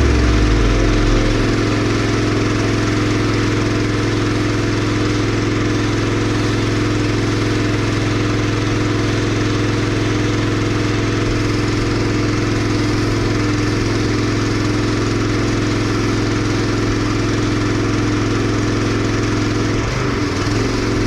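An engine running steadily at an even speed, with a low hum that drops in pitch in the first second or so.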